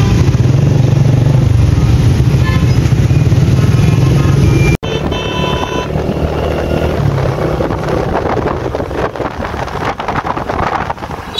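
Engine drone and road noise from a moving vehicle in city traffic. A strong steady low hum breaks off abruptly about five seconds in and gives way to a rougher, hissing rush of traffic.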